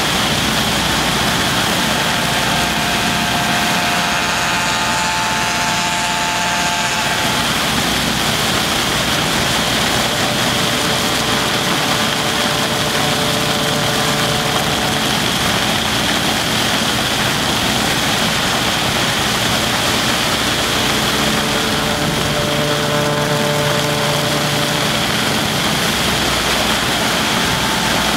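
Snow-making machine blowing crushed ice through a wide flexible hose: a steady engine-and-blower rush with a strong high hiss. Faint engine tones rise out of it twice, about five seconds in and again near twenty-three seconds.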